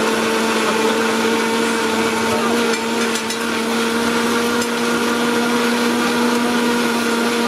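Electric countertop blender running at a steady pitch, pureeing watermelon chunks into juice.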